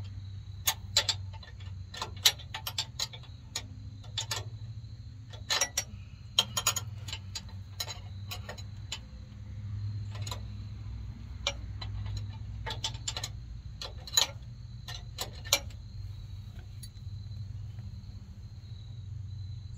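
Irregular metallic clicks and clinks of a plain, non-ratcheting hand wrench being turned and refitted on the top bolts of a Sumo Spring bracket under a motorhome chassis. The clicks come in quick clusters and thin out about three-quarters of the way through.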